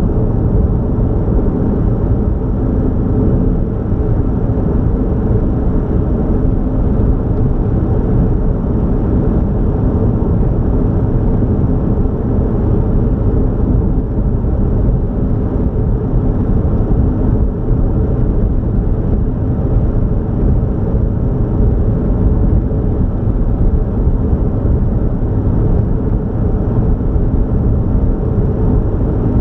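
A car driving along a highway: a steady low rumble of engine and tyre noise that holds without change.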